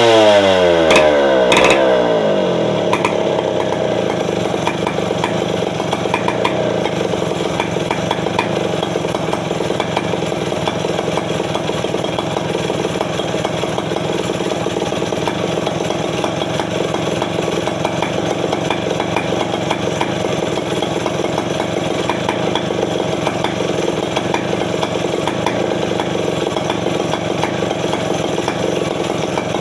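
Two-stroke 070 chainsaw winding down from a rev over the first couple of seconds, then idling steadily while it is warmed up before work.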